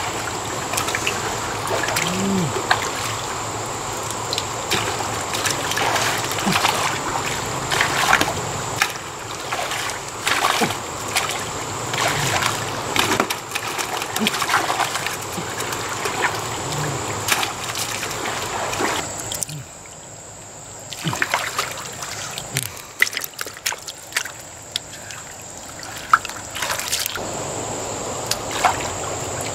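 Hands groping through shallow muddy water, splashing and sloshing in quick irregular bursts over a steady trickle of water. It goes quieter for several seconds past the middle.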